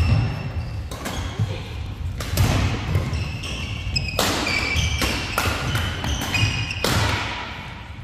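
Badminton rally: sharp racket strikes on the shuttlecock about once a second, with short high shoe squeaks and thudding footwork on the court floor between them. Each strike rings on in the hall. The strikes stop about a second before the end.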